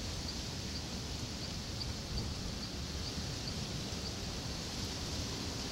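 Outdoor night ambience: a steady hiss and low rumble with a faint high chirp repeating about twice a second.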